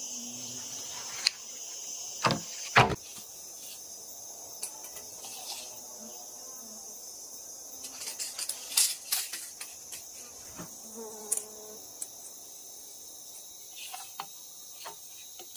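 Steady high-pitched chorus of forest insects, with scattered knocks and clicks on top, the loudest a little before 3 s in and in a cluster around 8 to 9 s in.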